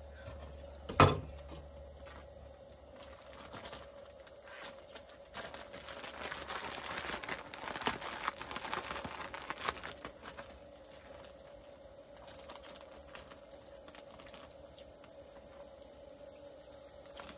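A single sharp knock of a knife on a wooden cutting board about a second in, then several seconds of plastic bag crinkling as the bag of breaded fish is handled, with a few light clicks, over a faint steady hum.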